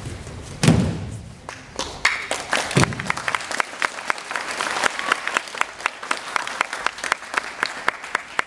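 A heavy thud as a judoka is thrown onto the tatami mat, with a second thump about two seconds later. The audience then breaks into applause that carries on to the end.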